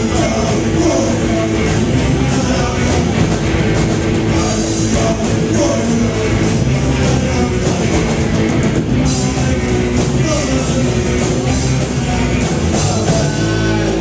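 Live rock band playing loud: distorted electric guitars, bass and a full drum kit under a male lead vocal. Near the end the drumming stops and a chord is left ringing.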